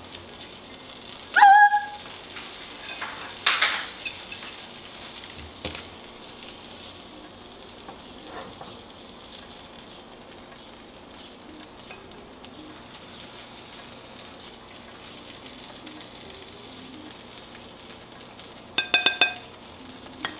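Steady faint sizzling hiss of food frying, with a spoon scooping cooked Mexican rice out of a stainless steel braiser. There is a short squeaky metal scrape about a second and a half in, and a few ringing clinks of the spoon on the pan or plate near the end.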